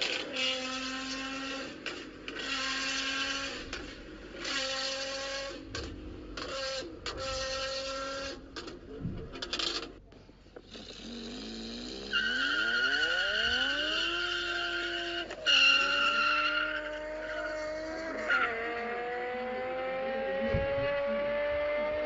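A performance car's exhaust in about five short revving bursts. Then a BMW M5 accelerating hard, its engine note climbing and dropping back at two gear changes, with a high steady whine through the middle of the pull.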